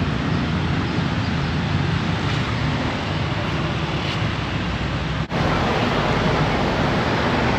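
Steady city street traffic noise, an even rumble of passing vehicles, broken by a brief dropout about five seconds in before it carries on.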